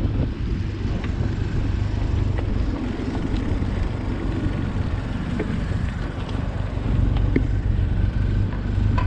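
Wind buffeting a GoPro's microphone while cycling, a steady low rumble with a few faint clicks and rattles.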